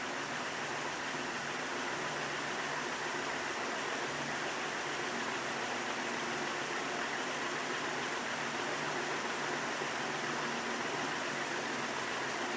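A 1981 36-inch Evergo industrial ceiling fan running steadily on its high setting: an even rush of air over a faint low motor hum.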